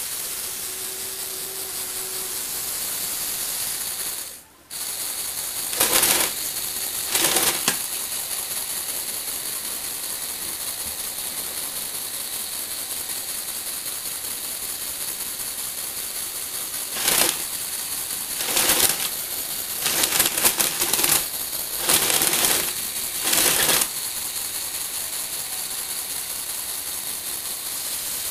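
Lego Technic electric motors driving plastic gears as the platform tilts and turns the model car, a steady mechanical whirring with a ratcheting edge. It cuts out for a moment about four seconds in, and there are several short, louder bursts of gear noise, twice near six to seven seconds and in a run between about seventeen and twenty-four seconds.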